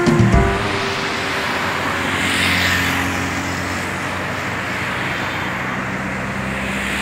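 Road traffic on a multi-lane road: a steady rush of cars going by, with one vehicle passing louder about two and a half seconds in.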